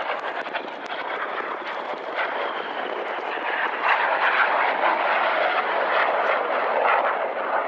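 Red Arrows BAE Hawk T1 jet flying past in a display, its jet engine making a steady rushing noise that grows louder about halfway through.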